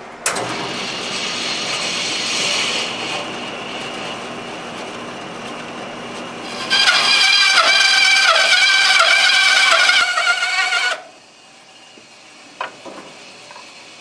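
Bandsaw running and cutting through a 2x6 pine board. About seven seconds in the cut gets louder, with a high-pitched whine over the rasp of the blade. It stops abruptly near eleven seconds.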